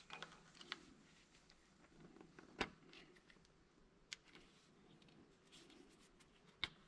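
Near silence with faint handling noise: rubber spark plug wires being pressed into plastic wire separators, with scattered small clicks. The sharpest clicks come about two and a half seconds in, at about four seconds, and near the end.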